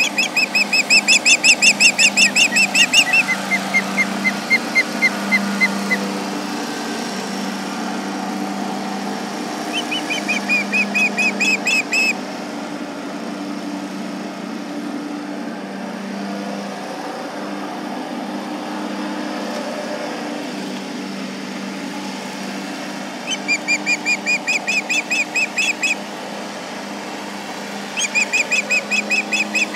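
Ospreys giving runs of sharp, rapidly repeated whistled alarm calls, about six a second, several times, in alarm at a tractor working nearby. Under them runs the steady low drone of the tractor's engine.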